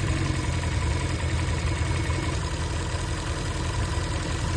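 Nissan SR20VE engine with Kelford 184T camshafts idling steadily, its VVL switched on by hand so that the tick from the free-floating VVL rockers is gone.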